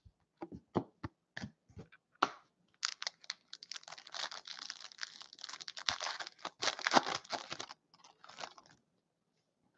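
A few light taps of cards and a plastic holder set down on a table, then a trading-card pack's foil wrapper crinkling and tearing for about five seconds as it is opened by hand.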